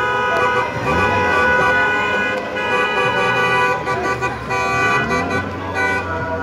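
Several car horns honking at once, held and overlapping, in street celebration after the football final, with voices shouting over them.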